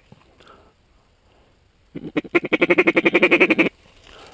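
Mallard duck call blown in a fast feed chatter: a loud run of about a dozen quick notes a second, lasting nearly two seconds and starting about two seconds in.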